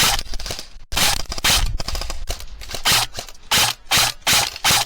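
Airsoft gun firing close by: a longer burst about a second in, then a string of short bursts and single shots.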